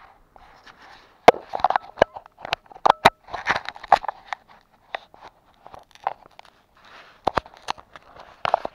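Close handling noise as a person sits down in snow: clothing rustles and scrapes against the body-worn camera, with irregular crunches of snow and sharp clicks.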